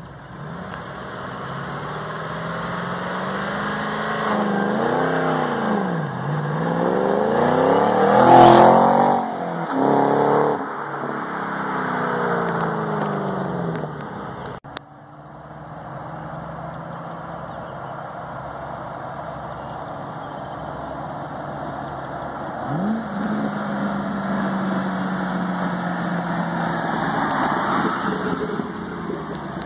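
Shelby GT500's supercharged 5.8-litre V8 accelerating hard at full throttle, its pitch climbing and dropping back through the gears, loudest as the car speeds past about eight seconds in, then falling away. After a break, the same engine runs at low, steady revs and swells as the car drives slowly past near the end.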